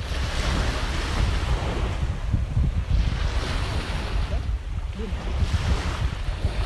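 Wind buffeting the microphone with a heavy rumble, over sea surf washing on shore rocks, the hiss of the water rising and falling a few times.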